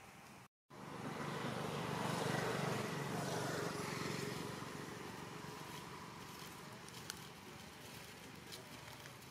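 A motor vehicle passing, its noise swelling over about two seconds and then slowly fading, with a few faint ticks near the end.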